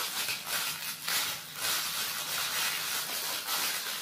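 Clear plastic packaging bag crinkling and rustling in uneven bursts as it is pulled off a plastic toy horse.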